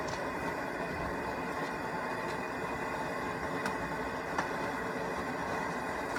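Steady rushing noise of a large stainless steel kettle of wort at a rolling boil, with a couple of light clicks near the middle.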